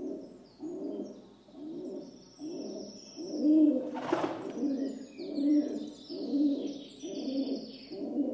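Rock dove (feral pigeon) cooing, a low rolling coo repeated about once a second, with fainter high chirps of small birds behind it. About four seconds in comes a brief noisy burst, the loudest moment.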